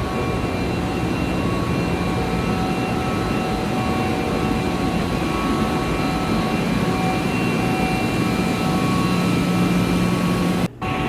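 Natural-gas-fired boiler and its combustion-air blower running steadily in a boiler room: an even mechanical hum with several faint steady tones. The sound breaks off briefly near the end.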